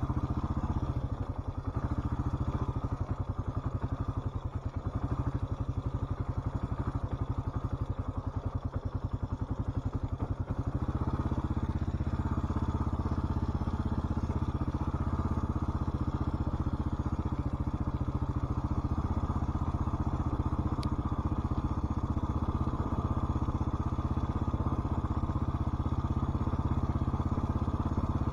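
Motorcycle engine running as the bike rides along, uneven and lighter for about the first ten seconds, then steadier and louder.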